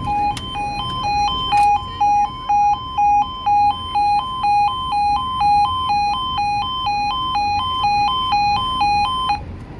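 UK level crossing's electronic two-tone warning alarm alternating between two pitches about twice a second while the barriers lower, with a couple of clicks in the first two seconds. It cuts off suddenly near the end as the barriers come down.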